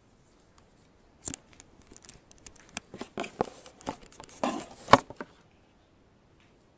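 Crinkly rustling and light clicks from handling, a scattered run starting about a second in, the sharpest click near the end of the run.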